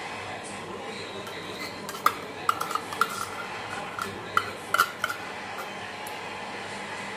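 A metal spoon clinking against a glass mixing bowl of mashed potatoes: a string of sharp, ringing clinks from about two seconds in to about five seconds in, over steady background noise.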